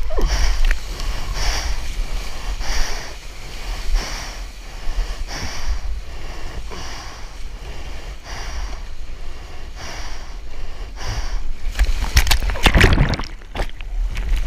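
Water rushing and splashing past a surfboard ridden on a small wave, close to the microphone, with a low wind-like rumble and hissing surges about every second and a half. About twelve seconds in there is a loud burst of whitewater splashing as the rider falls and the board tumbles.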